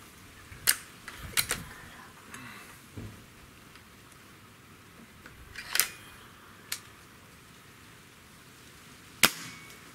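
Hatsan 135 QE Vortex .30-calibre break-barrel gas-piston air rifle being cocked, loaded and fired: a few sharp metallic clicks as the barrel is broken open and later snapped shut, then a single sharp shot about nine seconds in, by far the loudest sound.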